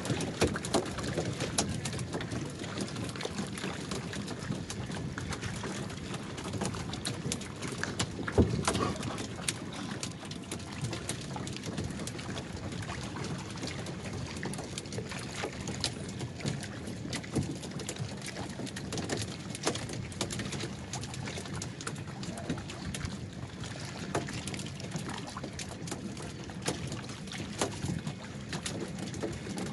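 Water lapping and splashing around wooden outrigger fishing canoes, with scattered knocks and clicks of wood and gear against the hulls; one louder knock about eight seconds in.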